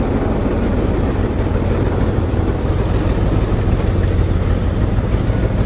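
Freight train's container flat wagons rolling past close by: a steady, loud rumble of steel wheels on the rails.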